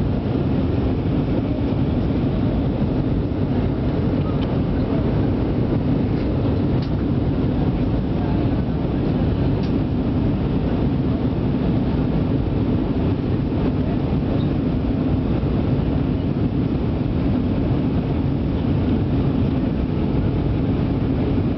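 Airbus A318 cabin noise on approach: a steady drone of engines and rushing air, even in level throughout, with a low hum running under it.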